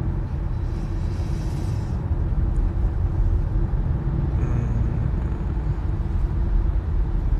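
Steady low rumble of a car, engine and road noise heard from inside the cabin.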